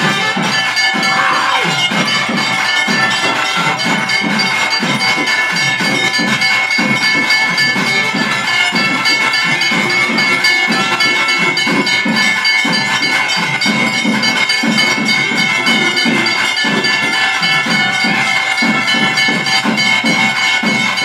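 Temple puja music: drums beating a fast, steady rhythm of about three to four strokes a second, with metal bells ringing continuously over it during the lamp offering.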